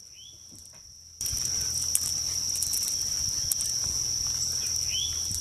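Outdoor insect chorus: a steady, high-pitched trill of insects that gets much louder about a second in, with a couple of short rising chirps over it.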